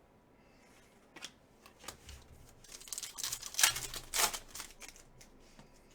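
Trading cards being handled: cards sliding and scraping over one another in a run of short rustles, busiest and loudest about three to four seconds in.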